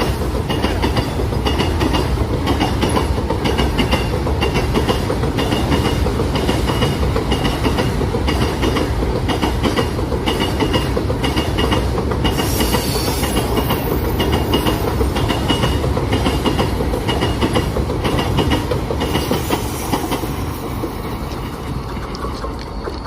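Train behind a WAG9 electric locomotive running, its wheels clattering over the rail joints in a steady, rhythmic tadak-tadak over a loud running rumble, fading slightly near the end.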